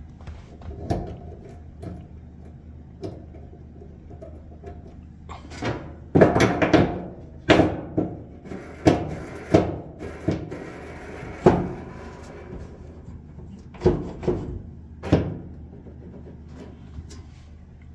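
Irregular knocks and clatter from a dryer drum support roller and the sheet-metal dryer cabinet being handled, busiest in the middle, over a steady low hum.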